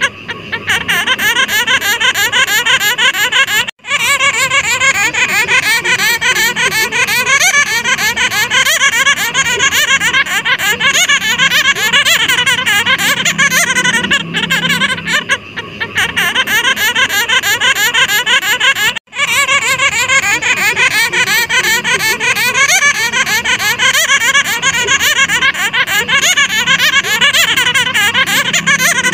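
A colony of fruit bats (flying foxes) calling all together: a loud, continuous mass of short, rapid, overlapping calls, broken by two brief gaps about four seconds in and again about nineteen seconds in.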